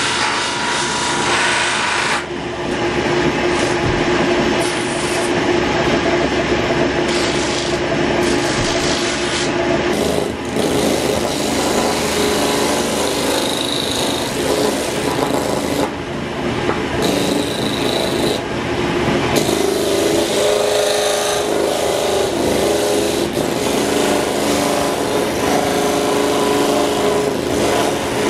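Belt-driven disc sander running with a steady hum, while pieces of wood are pressed against its abrasive disc, giving a continuous rasping grind that varies as the pressure on the wood changes.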